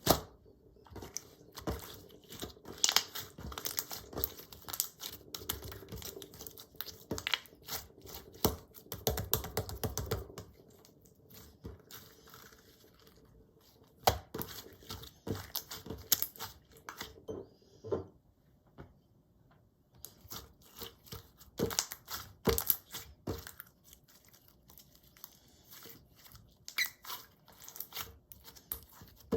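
Slime being squeezed, stretched and poked by hand, giving dense runs of crackling clicks and pops, with a short pause a little past the middle.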